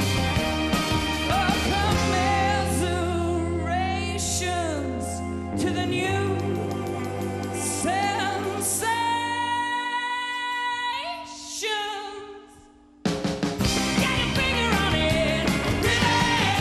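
Live indie rock band playing with sung lead vocals over drums, bass, guitars and electric organ. About nine seconds in the band thins to long held sung notes, then dies away almost to silence, and the full band comes back in suddenly about thirteen seconds in.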